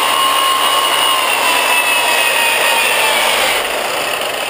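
Corded Milwaukee 5540 sander/polisher running with a steady high motor whine, which dips in pitch and fades somewhat about three seconds in.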